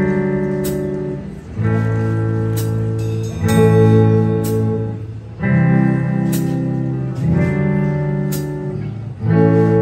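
Live rock band playing an instrumental intro: electric guitars ringing out sustained chords that change about every two seconds, with drum and cymbal hits.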